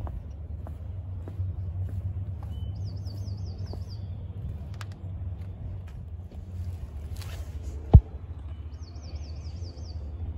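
Outdoor ambience of steady low rumble with faint footstep clicks, while a songbird sings a quick wavering trilled phrase twice, once about three seconds in and again near the end. A single sharp knock about eight seconds in is the loudest sound.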